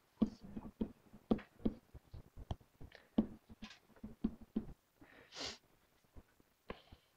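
Faint, irregular short taps and clicks of a stylus writing on a tablet screen, several a second, with a brief hiss about five and a half seconds in.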